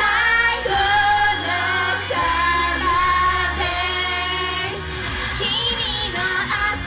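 Japanese idol pop song performed live: female singing of held, gliding notes over pop music with a steady heavy bass.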